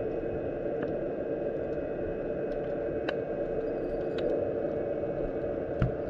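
Underwater ambience in shallow sea water: a steady rushing noise with a faint hum, a few scattered faint clicks, and a dull low thump near the end.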